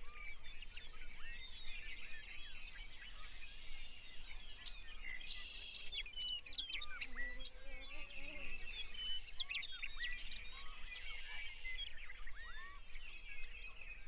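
Birdsong ambience: many small birds chirping in quick, high calls and short trills, over a faint steady low hum.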